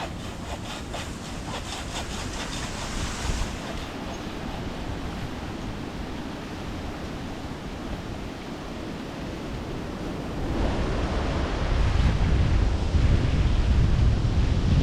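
Wind buffeting the microphone, a steady rushing noise that turns into a heavier low rumble about ten seconds in. A quick run of short scratchy strokes sounds over it in the first few seconds.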